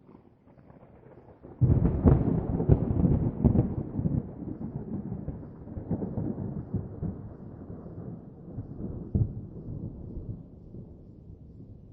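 A thunderclap: a faint low rumble, then a sudden loud crack about one and a half seconds in, with a few crackles, then a long rumble that slowly fades.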